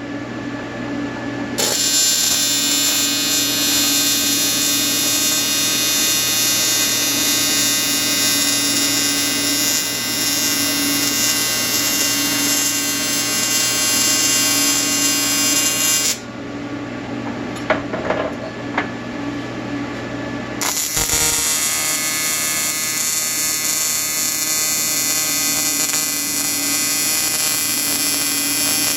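Electric welding arc buzzing steadily, one long weld of about fifteen seconds, then a pause with a few light clicks and taps, then a second weld starting about three quarters of the way through.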